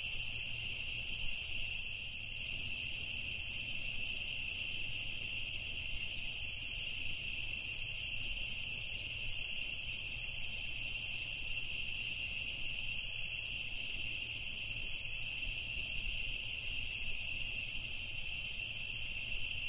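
Night insect chorus: crickets trilling in a continuous, steady high drone.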